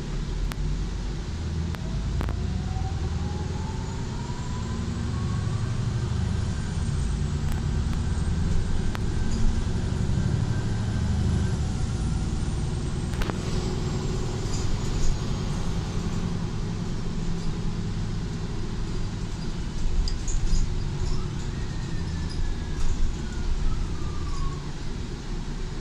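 Solaris Urbino 8.9 city bus under way, heard from the passenger cabin: a steady low diesel and road rumble. A thin drivetrain whine rises in pitch over the first several seconds and another falls in pitch near the end. There is one sharp knock or rattle about halfway through.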